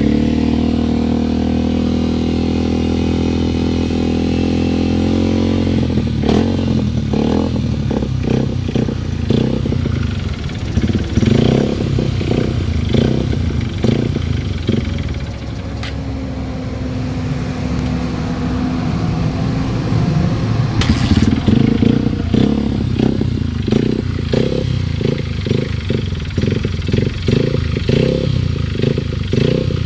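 Honda XR150L's air-cooled single-cylinder engine running with a knock that the owner calls engine knocking, cause unknown. It runs at a steady speed for the first several seconds, then goes uneven in repeated short pulses.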